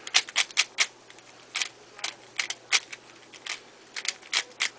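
Pink Dayan Guhong 3x3 speedcube, freshly lubed with Lubix, being turned by hand: its plastic layers click as they turn and snap into place. A quick run of turns in the first second is followed by single turns every half second or so.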